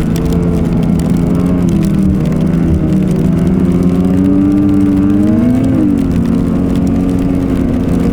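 Snowmobile engine running while riding, its pitch slowly rising over a few seconds, dropping sharply about six seconds in as the throttle eases, then holding steady.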